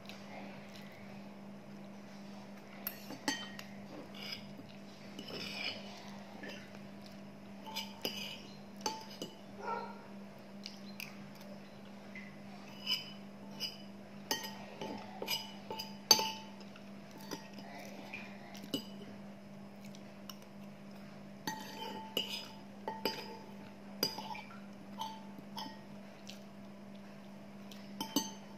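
Metal spoon and fork clinking and scraping against a bowl in irregular taps while scooping up the last of a meal. A steady low hum runs underneath.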